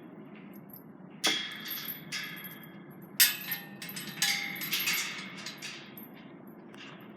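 Level crossing barrier creaking and clanking: a run of sharp metallic knocks with a brief ringing after each, about a second in, three seconds in and several more over the next two seconds.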